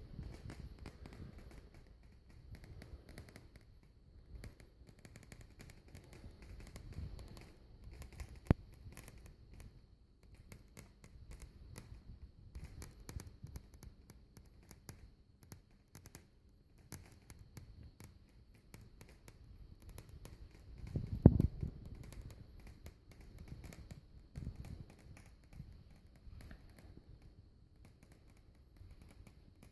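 Vicol Shigaclone CD player making a strange noise: scattered clicks and crackles over a faint steady high tone. There is a sharp click about eight seconds in and a louder cluster of knocks about 21 seconds in.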